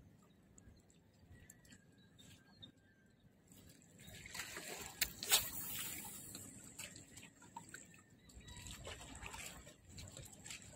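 Faint water lapping and trickling against the rocks, with a louder rush about four seconds in and a sharp click about a second later as a jig is cast on a spinning rod; small ticks follow as the line is worked.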